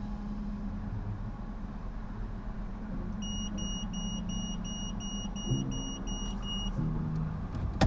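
Electronic beeping, short high beeps at about three a second for some three and a half seconds starting about three seconds in, over the low steady hum of an idling car.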